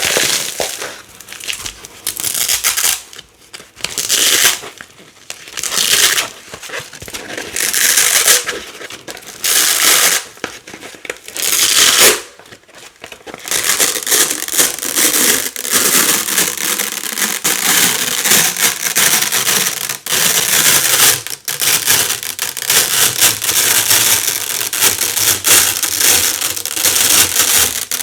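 Black hook-and-loop (Velcro) plates pulled apart, loud and crunchy. For the first half come separate tearing pulls every second or two; after that the tearing runs on almost without a break.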